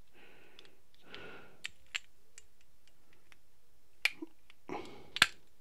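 A few sharp, scattered clicks and taps of small metal carburettor parts being handled on a workbench as the emulsion tube is worked out of the carb, the loudest click about five seconds in.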